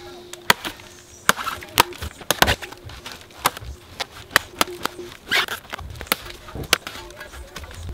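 A heavy blade chopping repeatedly into the soft, rotting trunk of a coconut palm, with sharp irregular blows about two a second that splinter off fibre and chips.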